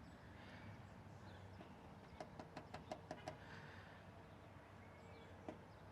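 Near silence, broken about two seconds in by a quick run of about seven faint taps, with one more tap near the end.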